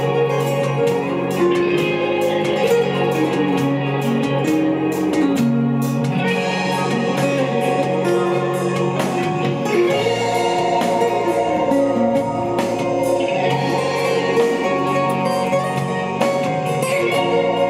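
Music with singing over organ and guitar, played from a laptop through a homemade USB DAC, amplifier and pair of DIY loudspeakers.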